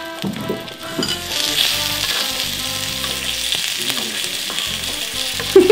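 Meat sizzling and frying on a hot stone slab, a steady hiss that swells about a second in.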